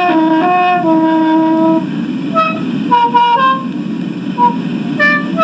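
Thai khaen, a bamboo free-reed mouth organ, playing a tune: long held notes for about two seconds, then shorter, quieter notes.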